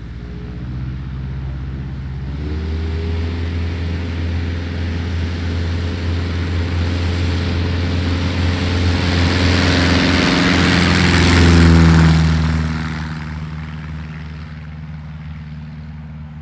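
Rans S21 light bush plane's propeller engine, stepping up in pitch about two seconds in and growing steadily louder as the plane comes close. Near the end the pitch drops as it passes by, and the sound fades.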